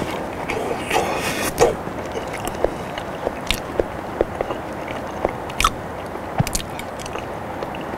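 Close-miked chewing of boiled potato: wet mouth sounds that thin out after about two seconds into scattered small clicks and smacks, over a steady background hiss.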